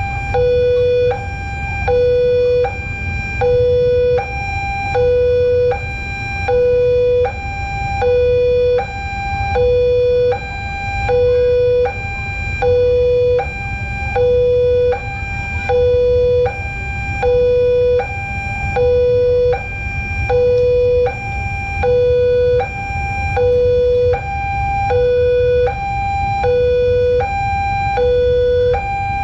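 Railway level-crossing warning siren sounding a steady two-tone hi-lo wail. A lower and a higher tone alternate about once a second, the crossing's signal that a train is coming and the barriers are closing.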